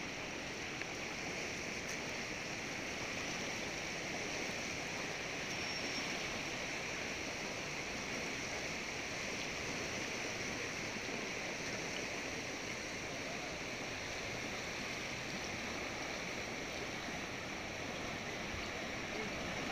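Floodwater of the swollen Manjira River rushing steadily past a causeway, a continuous even roar of fast muddy current.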